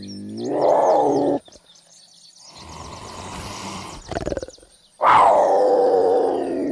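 Cougar calls: a yowling call that rises and breaks off about a second and a half in, a breathy hiss, a short growl, then a loud call that starts high and falls in pitch.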